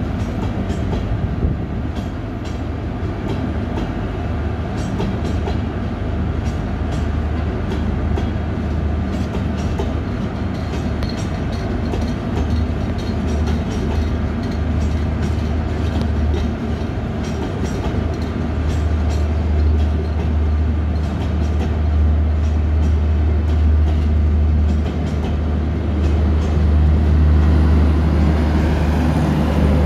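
Rajdhani Express passenger coaches rolling past: a steady rumble of wheels on rails with many sharp clicks as the wheels cross rail joints. A low hum grows louder in the second half.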